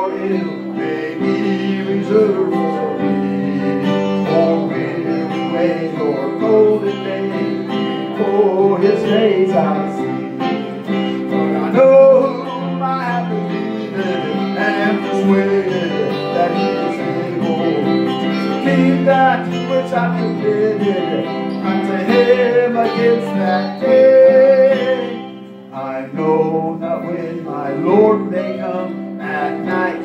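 Instrumental hymn music: an electric guitar playing with a keyboard, sustained chords changing every few seconds. The music drops away briefly near the end, then comes back.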